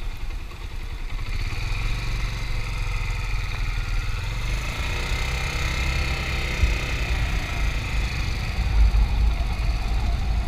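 Suzuki 250 training motorcycle's engine running at low speed, its pitch rising a little and easing back through the middle.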